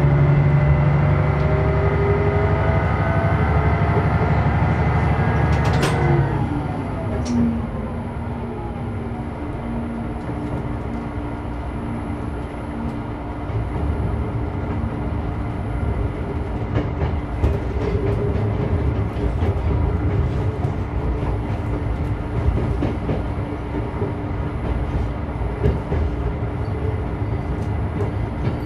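Diesel railcar running on the track. The engine climbs in pitch under power; about six seconds in there is a click and the engine drops back to a steady low drone as the railcar coasts. In the second half the wheels click over rail joints and points.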